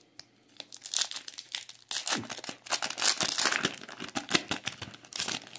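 Wrapper of a Topps Merlin Chrome soccer card pack crinkling and tearing as it is ripped open, a run of crackles starting about half a second in and stopping near the end.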